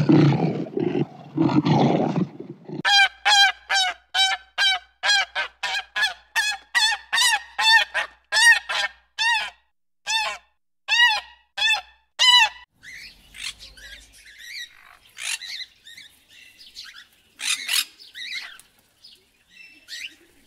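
A lion's deep roar trailing off in the first couple of seconds, then a black swan giving a rapid run of short honks, about two or three a second for some ten seconds. After that, budgerigars chirping and squawking now and then.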